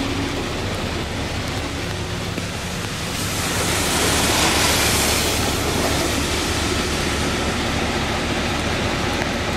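Steady rain hiss on a wet street with a vacuum truck's engine running low underneath. A louder hiss swells up about three seconds in and fades again a couple of seconds later.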